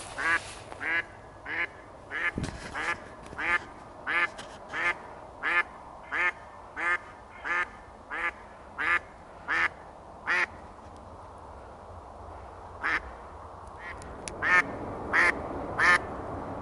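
A live decoy hen duck quacking in a long, steady run of about sixteen loud quacks, then a short pause and a few more near the end. She is calling to draw in a drake.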